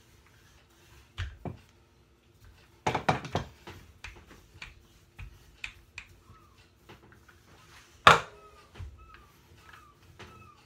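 Wooden rolling pin knocking and rolling on a wooden worktop as pastry dough is pressed flat. There are sharp knocks near the first second, a cluster around three seconds, and the loudest, single knock about eight seconds in. Faint short chirping calls repeat through the second half.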